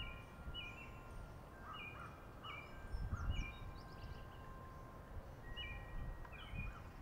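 Wild birds singing: short two-part calls repeated several times at uneven gaps, with higher quick chirps between them and long, thin steady whistles underneath. A faint low rumble comes and goes beneath the birdsong.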